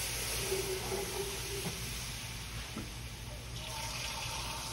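Chicken stock poured into a hot cast iron skillet of browned onions and flour roux, the liquid hissing and sloshing as it is stirred in with a wooden spoon; the hiss slowly fades.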